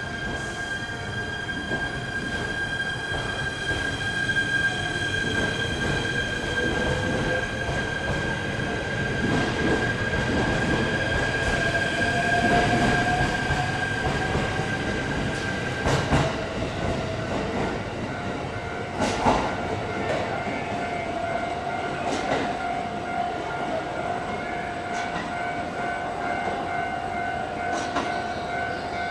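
Shinano Railway SR1-series electric train pulling out of the platform and accelerating: its motor whine rises slowly in pitch over the running and rumble of the cars, followed by a few sharp wheel clacks over the rail joints.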